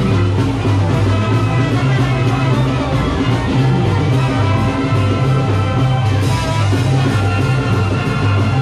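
Loud music with a bass line stepping between notes and a drum beat.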